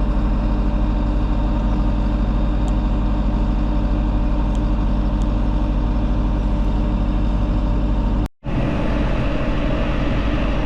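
A vehicle engine running steadily at an even idle, with a low hum. It cuts out suddenly for a moment about eight seconds in, then carries on.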